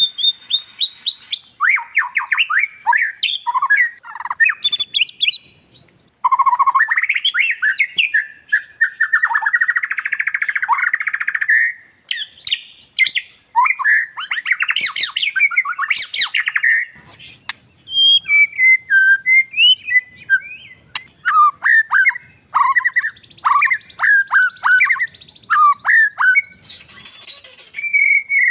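Oriental magpie-robin (kacer) singing a fast, varied song of whistled sweeps, trills and harsh buzzy phrases. In the last third it turns to runs of short repeated down-slurred notes.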